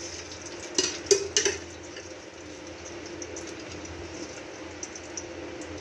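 A metal spoon clinks against an aluminium cooking pot three or four times about a second in as oil is spooned into it, over a steady background hiss.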